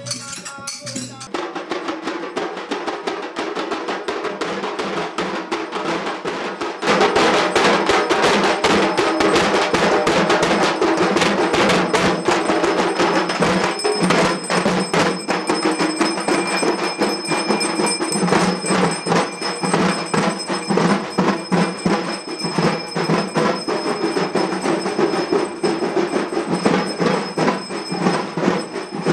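Fast ritual percussion with small Tamil hand cymbals (talam) clashing in a steady rhythm and ringing over it. It gets louder about seven seconds in.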